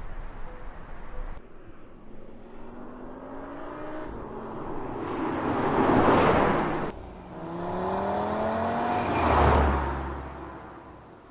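Audi TT RS turbocharged five-cylinder engine accelerating hard, its pitch rising as it builds to a loud peak, then breaking off abruptly. A second rising pull swells to another peak and then fades away.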